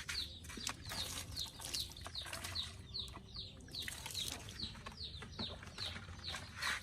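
A bird chirping over and over, short high falling chirps about two a second, with scattered clicks and a low steady hum underneath.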